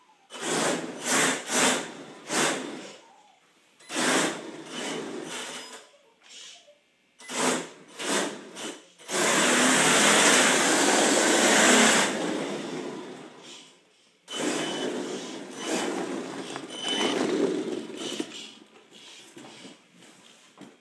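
An HPI electric drift RC car's motor whining in repeated short throttle bursts, then running for a long unbroken stretch about nine to twelve seconds in, then bursting again, with tyre hiss as the car slides on a smooth hard floor.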